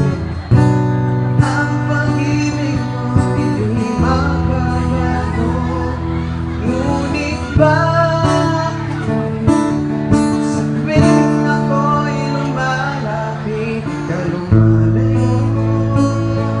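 A man singing live with a strummed acoustic guitar accompanying him.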